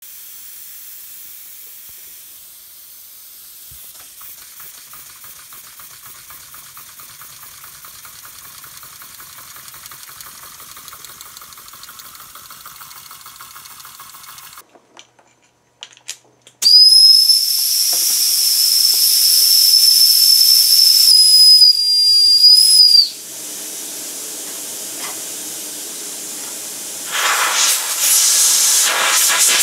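Model steam engines running on compressed air: a steady hiss of air with a fast, faint pulsing from the working cylinder. After a short break, a loud, steady, high whistle sounds for about six seconds, the engine's toy steam whistle blown by air. Then the hiss returns, louder near the end as the boiler valve is opened.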